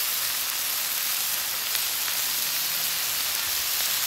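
Shrimp, mushrooms and fried rice sizzling on a hot flat-top griddle: a steady hiss of frying.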